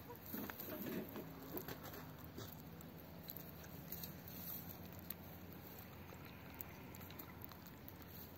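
A hen pecking at a fig held in the hand: irregular soft beak pecks and small clicks, faint, with a low steady hum behind.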